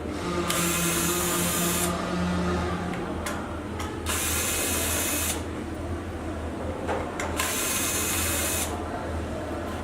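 Electric power screwdriver run in three short bursts of about a second and a half each, unscrewing fasteners, with light clicks between the bursts over a steady low hum.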